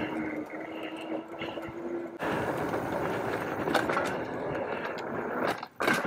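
Fat-tyre electric mountain bike riding over a dirt trail: a steady hum, likely from the rear hub motor, for about two seconds, then a sudden louder rush of wind and tyre noise with scattered knocks and rattles from bumps.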